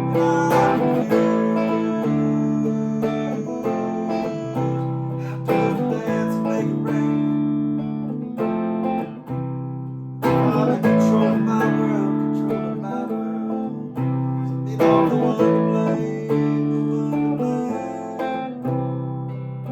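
Acoustic guitar chords played by hand and left to ring, with harder strums about ten and fifteen seconds in.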